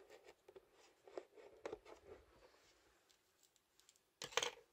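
Scissors snipping and scraping at the tape on a cardboard figure box, making faint scattered clicks. A short, louder rustle of packaging comes near the end.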